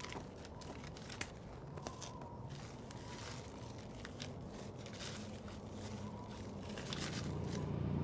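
Dry soil and grit scraped up by hand and poured into a small sample container, in a series of short scrapes and rustles. A low music drone swells in near the end.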